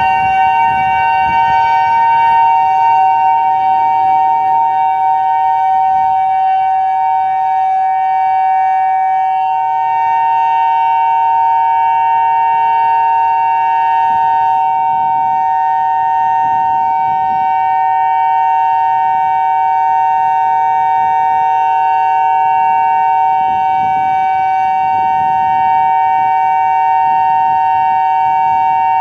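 Federal Signal Modulator 5020 electronic outdoor warning siren, with its stacked speaker column, sounding a loud, steady two-note chord that holds the same pitch without rising or falling.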